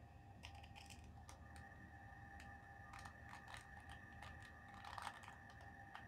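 Faint plastic clicks of a 2x2 Rubik's cube being twisted by hand, several separate turns spread over a few seconds.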